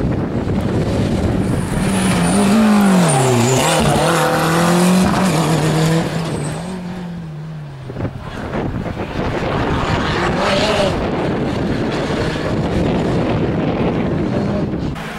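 Historic rally car engine revving hard through the bends, the pitch dropping and climbing again with lifts and gear changes. The engine dips about eight seconds in, then revs again.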